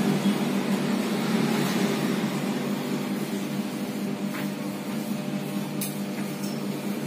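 A motor vehicle engine running with a steady low hum that slowly fades, with a few light clicks past the middle.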